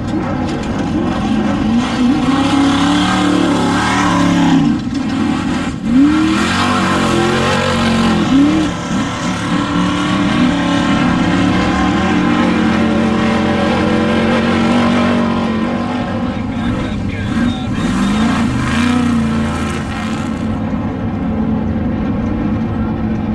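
Off-road desert race vehicle engines running hard. Their pitch climbs and drops again and again as they accelerate and shift.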